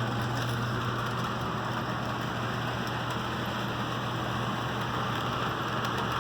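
HO scale model train running on the layout: a steady low motor hum with an even rolling hiss of wheels on the rails.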